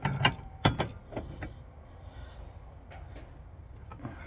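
Metal tools clanking on the propane line fitting as it is being unscrewed: several sharp clanks and clicks in the first second and a half, then a few lighter clicks.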